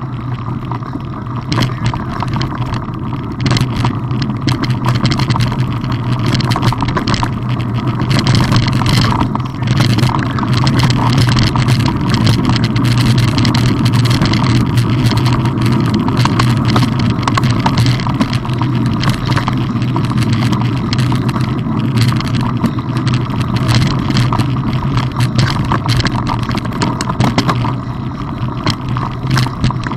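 Mountain bike rolling along a gravel dirt track: tyres crunching over loose stones and the bike rattling in many small clicks over a steady low rumble.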